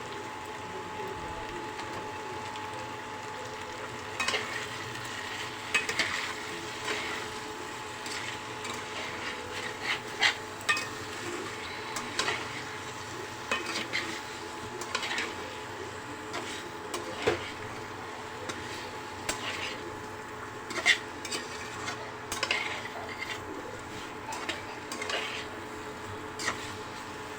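A spatula stirring cauliflower and potato pieces in spice masala in a kadai: irregular scrapes and knocks of the spatula against the pan, starting about four seconds in, over a steady background hum.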